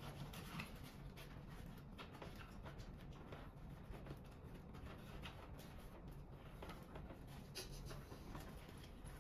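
Faint rustling and scraping of a fabric carrying bag and power-adapter cords being handled and tucked into a compartment, with scattered light clicks.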